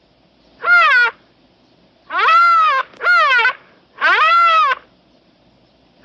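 Made-up Elasmotherium calls edited together from stock animal recordings such as walrus, rhino, camel and bull sounds: four loud cries, each rising then falling in pitch, the first short and the next three longer and close together.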